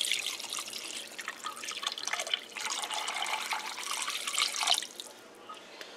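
Water poured from a container into a steel Instant Pot inner pot, splashing onto marinated mutton pieces; the pour tails off and stops about five seconds in.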